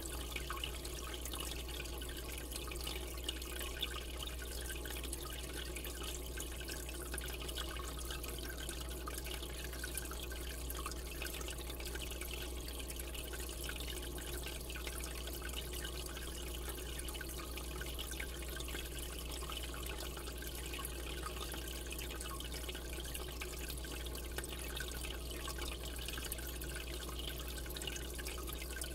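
Aquarium water circulating, trickling and bubbling steadily, over a constant low hum.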